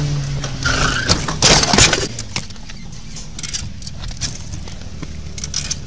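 Sportbike going down: a cluster of hard knocks and scraping clatter about a second in, then the engine running low at idle with scattered small clicks and rattles.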